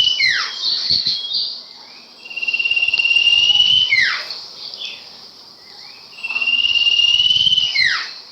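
Recorded song of the sirpu bird: a high, rapidly pulsed trill held for about one and a half seconds that ends in a quick downward swoop. The phrase comes about every four seconds, twice in full after a swoop right at the start, over a steady high hiss.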